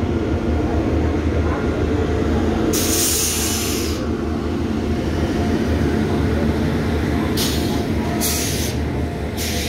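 Indian Railways express train's locomotive and coaches rolling past close by: a steady low rumble of wheels on rails, with a short burst of hiss about three seconds in and several more near the end.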